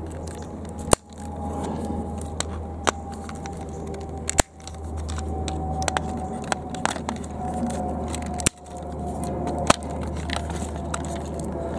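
Side cutters snipping plastic tabs off a toy tractor's plastic cab: four sharp snaps a few seconds apart, with smaller clicks of plastic being handled between them.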